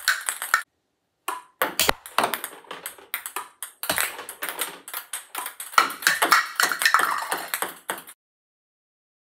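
Ping pong ball bouncing on the table and off a paddle: a fast, uneven run of sharp plastic clicks, several a second, that cuts off suddenly near the end.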